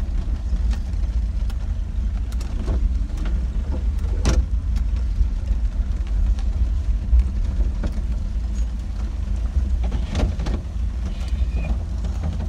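A car driving on a wet road, heard from inside the cabin: a steady low engine and road rumble with scattered sharp ticks.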